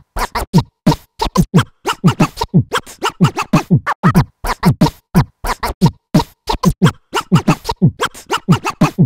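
A rapid string of short, chopped vocal-like sounds, about four or five a second, each dropping in pitch, with a record-scratching quality, like a voice sample being scratched back and forth.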